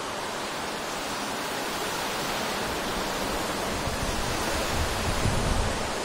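Wind blowing, a steady rushing hiss, with gusts starting to buffet the microphone in a low rumble about halfway through.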